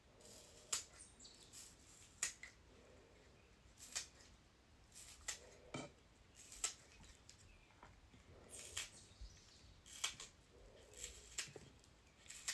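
Faint, irregular snipping as a scallion is cut into a bowl, about one short sharp cut a second.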